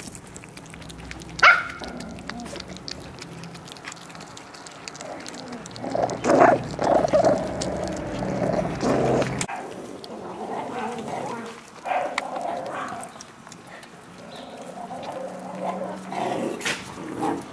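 Miniature pinscher puppies growling and yapping over raw meat they are tugging at and chewing, with one sharp yelp about a second and a half in as the loudest sound.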